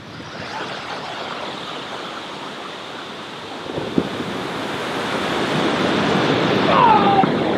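Ocean surf breaking and washing up the beach, growing louder toward the end. There is a single sharp knock about four seconds in and a brief falling squeal near the end.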